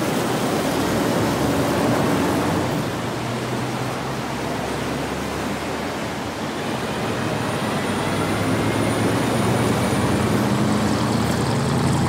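A vehicle's engine hum and steady road noise as it drives slowly, the hum drifting a little in pitch.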